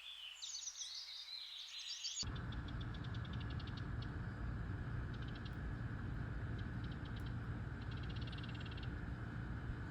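Songbirds singing: bright chirping notes for the first two seconds, then, after an abrupt change, short rapid trills repeated every second or so over a steady low rumble of background noise.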